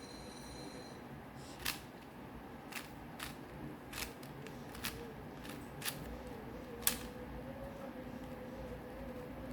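Plastic layers of a 4x4 Rubik's Cube being turned, giving sharp irregular clicks roughly once a second, as the edge-pairing algorithm is repeated.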